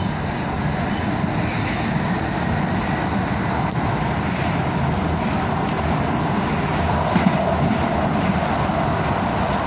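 Tyne and Wear Metro train running along the line, heard from inside the carriage: a steady rumble and rush of wheels on rail.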